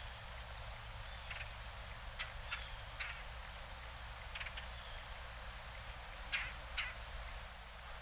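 Northern cardinals giving short, sharp chip calls, about ten of them spaced irregularly, each a quick downward-sweeping note.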